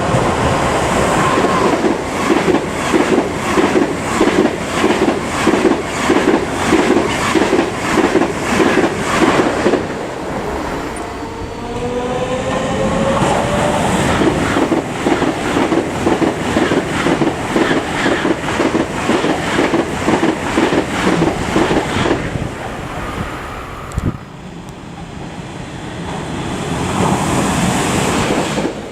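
A train passing close by, its wheels clacking over the rail joints in a fast, regular rhythm of about two beats a second. The clatter eases about ten seconds in while a tone glides upward, then picks up again until near the end, when it gives way to a swelling rush of noise.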